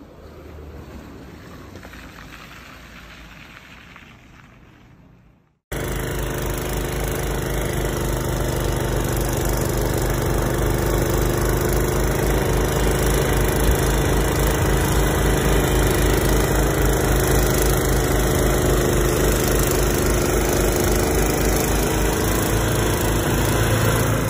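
An engine idling steadily with an even low throb, starting abruptly about six seconds in and cutting off just before the end. Before it comes a quieter, even hiss.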